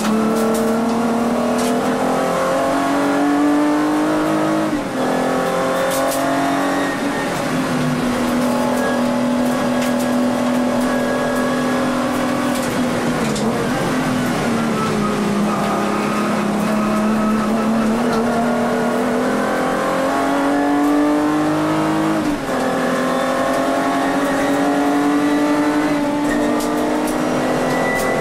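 Volkswagen Vento VR6 race car's VR6 engine heard from inside the cabin, revving hard under racing load. Its pitch climbs and drops sharply at gear changes about 5 seconds and 22 seconds in, and falls off around 13 seconds before building again.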